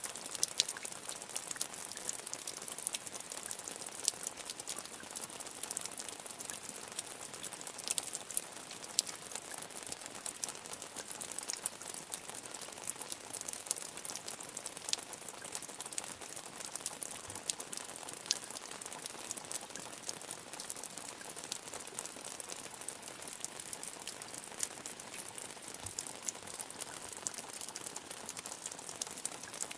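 Rain falling steadily, a dense high hiss made of countless small drop ticks, with no change in strength.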